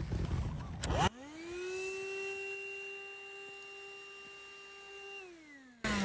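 Small motor of a THISWORX 12-volt handheld car vacuum whining as it spins up, runs at a steady pitch for about three seconds, then winds down near the end. Before the whine, about a second of clattering handling noise.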